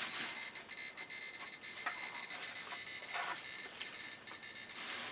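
Ecotest Terra-P dosimeter chirping for each count, a high beep so rapid it runs together into a near-steady tone and breaks into separate quick beeps in the second half. The fast chirp rate is the sign of strong gamma radiation coming off the radium-painted dials, over 100 microsieverts an hour.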